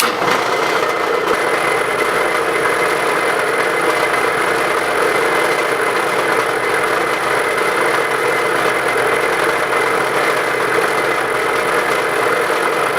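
Bridgeport milling machine switched on, its spindle starting suddenly and then running steadily with a hum and a whine. A thin high whine joins about a second in.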